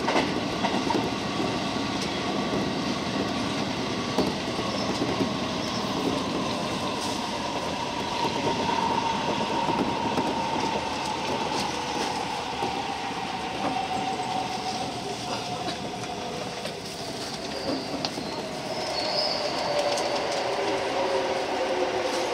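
Inside a 205-series electric train: the wheels rumble and clatter over the rails while a whine falls steadily in pitch as the train brakes into a station.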